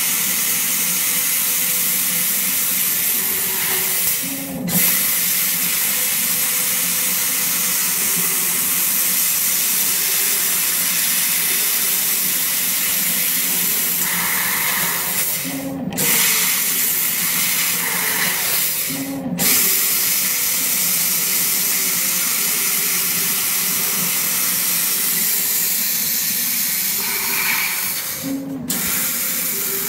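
Laser cutting machine cutting a metal round tube: a steady hiss of gas at the cutting nozzle, with faint low motor tones underneath. The hiss cuts out briefly four times, about four, sixteen, nineteen and twenty-eight seconds in, as the head moves between cuts.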